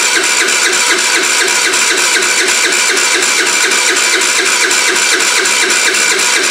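TaoTao scooter's electric starter cranking the engine over with an even, rapid beat, the engine not firing while the fuel pump is still filling the carburettor's float bowl.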